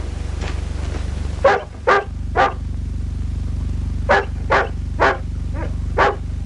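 Dog barking repeatedly, three barks and then, after a short pause, five more, over the steady low hum of an old film soundtrack.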